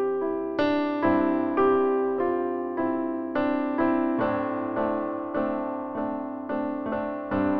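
Background music: a slow piano melody, single notes struck about twice a second, each ringing out and fading.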